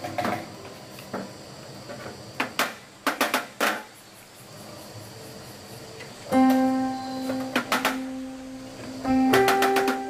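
Background music with plucked guitar notes, which come in clearly about six seconds in. Before that, a handful of sharp knocks or clicks, several close together around the middle.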